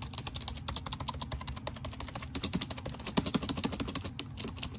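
Fast typing on a Razer Cynosa Chroma membrane gaming keyboard: a steady patter of key presses, busiest about three seconds in.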